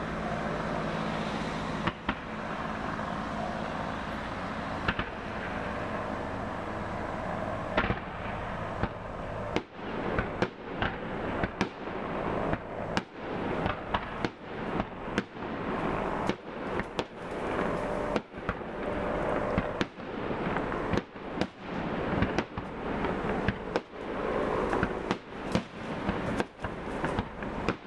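Fireworks display: a few scattered bangs over a steady background din at first, then from about ten seconds in a rapid barrage of shell launches and bursts, several sharp bangs a second.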